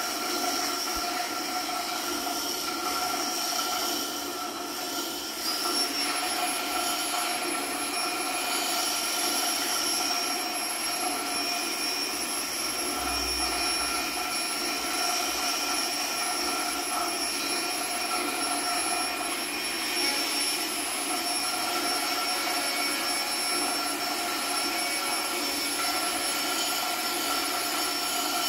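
Dense, steady drone from a live experimental electronic sound set: a hissing wash of noise with several held tones layered through it. About five seconds in, a new high tone slides up and then holds.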